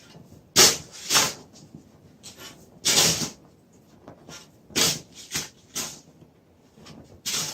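Footsteps crunching in deep snow: about seven short crunches at an uneven pace.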